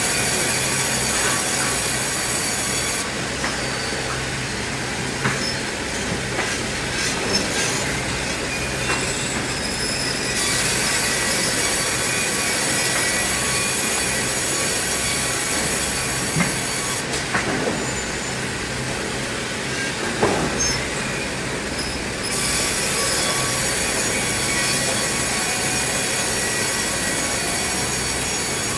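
Sawmill saw running and cutting timber into planks: a steady mechanical noise with a high hiss that comes and goes in spells of several seconds, and a few scattered knocks.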